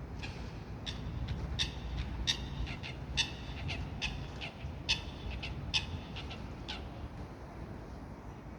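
A bird giving a series of short, pitched calls, one or two a second, that stop about two seconds before the end, over a steady low rumble.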